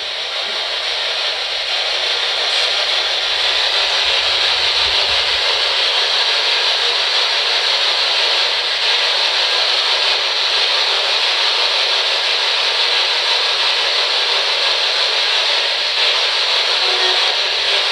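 Steady, unbroken hiss of static noise, loud and even throughout.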